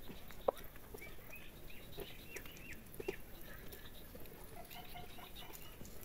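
Faint, short, high chirping bird calls in a couple of runs, over light pattering and scratching on dry ground. One sharp click sounds about half a second in.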